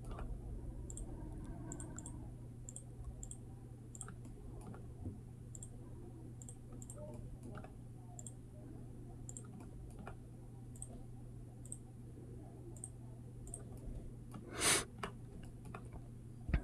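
Computer mouse clicking at irregular intervals, about one or two clicks a second, as points are placed one by one with Blender's knife tool. A steady low hum runs underneath, and a brief louder noise comes near the end.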